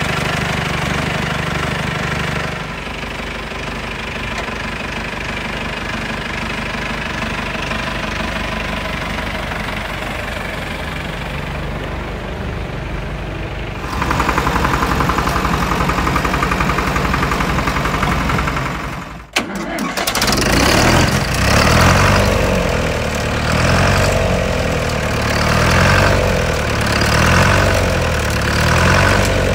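Nuffield tractor's four-cylinder diesel engine running. It grows louder about halfway through, breaks off briefly near two-thirds of the way, then rises and falls in loudness about every two seconds.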